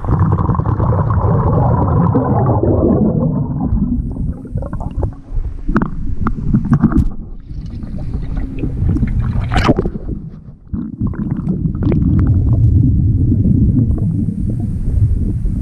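Underwater water noise around a scuba diver: a loud rumbling, gurgling wash of bubbles, broken in the middle by a run of sharp knocks and splashes before the rumbling returns.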